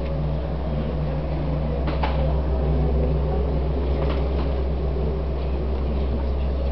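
A steady, deep low hum with a fainter higher hum that comes and goes, and a few faint clicks about two and four seconds in.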